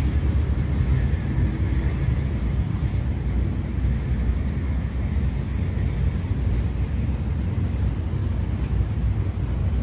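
A steady low rumble of outdoor background noise with no distinct events.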